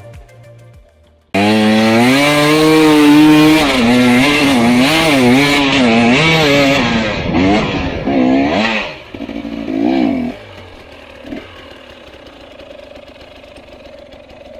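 Enduro motorcycle engine revving hard, its pitch rising and falling as the throttle is worked; it cuts in suddenly about a second in. It falls away around nine seconds in, flares once more briefly, then only a quieter steady background remains.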